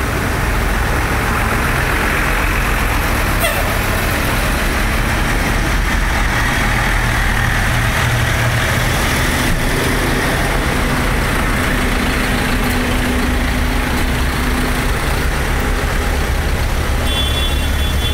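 Diesel engines of large John Deere farm tractors running close by in a column, a loud, steady rumble. A thin, high squeal joins in near the end.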